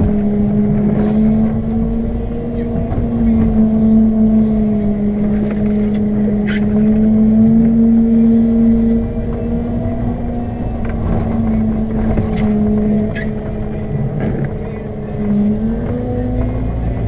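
Lundberg loader's diesel engine running steadily under load while plowing, a droning tone that wavers slightly and dips briefly near the end, over a rough rumble with a few light knocks.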